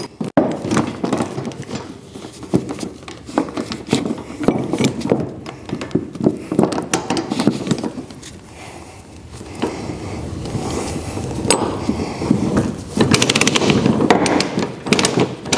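Steel tie-down chain and a ratchet load binder being worked by hand: the binder's ratchet clicking in quick runs and chain links clanking against the trailer deck as the chain is drawn up. The clicking eases briefly about eight seconds in, then picks up again.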